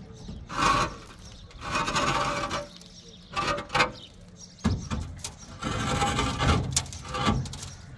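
Precast concrete rings scraping and grinding against each other as one is rolled and shifted by hand, in several rasping bursts with a sharp knock about halfway through.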